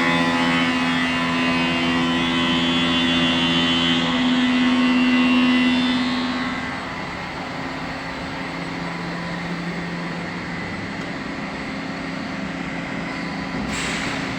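Hundegger K2 CNC timber machining centre running: a steady motor hum with a whine, louder for the first six seconds or so, then dropping to a lower steady level. A short noisy burst comes near the end.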